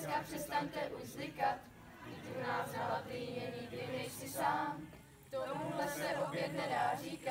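Group of young voices chanting a team song together in unison, in phrases broken by short pauses.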